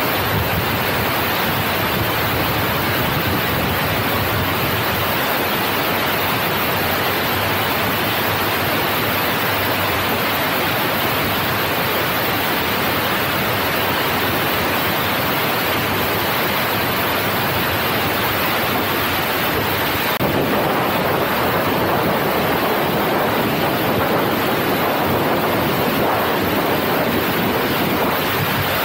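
Steady rush of wind over a microphone mounted on the outside of a moving passenger train, mixed with the train's running noise; a little louder from about twenty seconds in.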